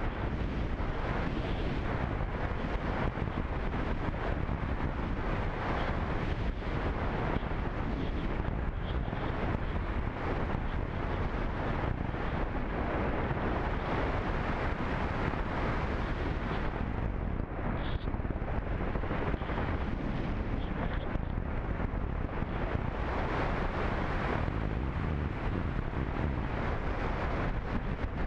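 Steady wind noise from air rushing over the microphone of a camera riding on a radio-controlled slope-soaring glider, with no motor sound.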